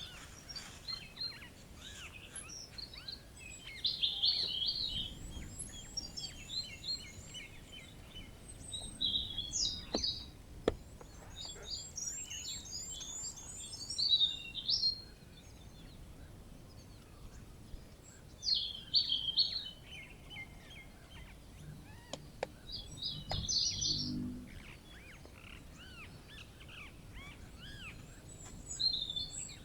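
Several birds chirping and singing, with short bursts of quick repeated high notes among the calls.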